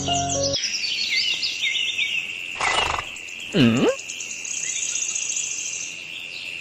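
Nature ambience of birds chirping and an insect trilling, left alone after a music cue cuts off about half a second in. A brief whoosh comes near the middle, followed by a short swooping sound effect that dips and rises.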